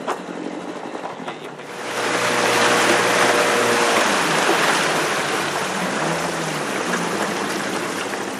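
Small boat under way on a river, its outboard motor running beneath a loud, steady rush of water and wind. The noise swells about two seconds in and stays up.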